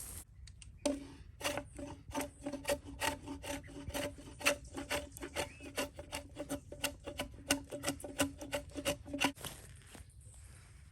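Rapid, even series of light strikes, about three or four a second, each with a short pitched ring, stopping about nine seconds in.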